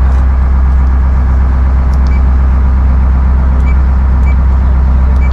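Fishing boat's diesel engine running steadily underway, a loud low drone heard inside the wheelhouse. A few short high beeps sound over it.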